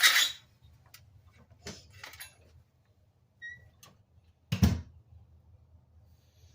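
A few knocks and clatters of objects being handled: a loud clattery burst at the start, scattered light clicks, and one sharp knock about four and a half seconds in.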